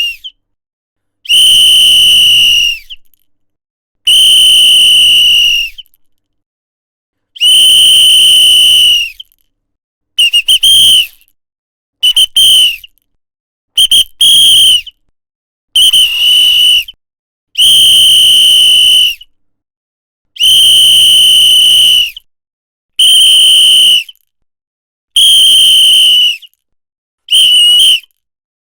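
A whistle blown in a series of about a dozen sharp, high-pitched blasts, some long and held steady, some short and quick, with brief silences between them.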